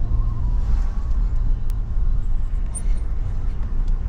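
Steady low rumble of a moving car's engine and tyres, heard from inside the cabin while driving slowly.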